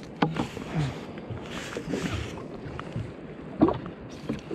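Water splashing and a few sharp knocks as a hooked snapper is brought alongside a jetski and lifted out in a landing net; the loudest knock comes about three and a half seconds in.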